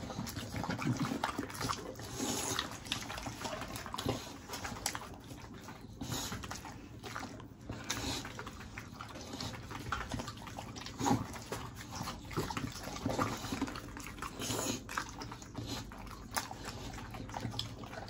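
English bulldogs chewing and crunching raw carrot pieces: many irregular short crunches and clicks.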